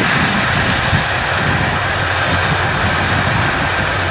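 Kubota DC105X combine harvester running steadily while it cuts and threshes rice: a continuous engine and machinery drone.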